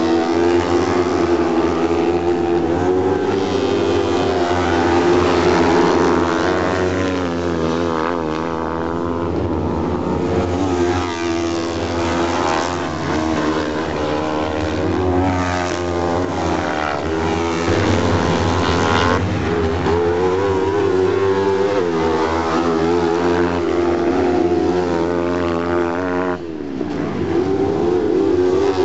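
Several motorcycle-engined sprint car buggies racing on a dirt track, their high engine notes rising and falling over and over as they accelerate and lift through the corner.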